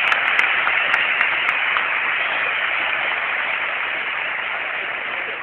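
Large football stadium crowd applauding, a dense steady wash that slowly fades.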